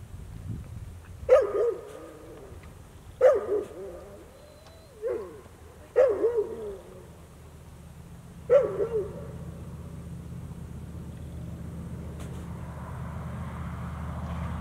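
A dog barking in five short bouts, some of them double barks, over about eight seconds. After that a low steady rumble sets in and slowly grows louder.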